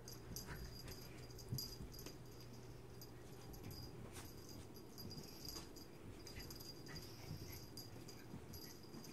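Faint sounds of a small dog and a ferret play-wrestling on carpet, with scattered light scuffles and clicks.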